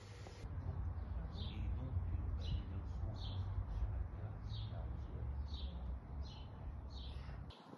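A small bird calling, repeating a short high note that falls in pitch about twice a second, over a steady low rumble.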